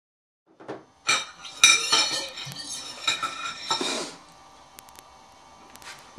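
Hard objects clattering and clinking as they are handled, with many sharp knocks for about three seconds, then a faint hiss with a few light clicks.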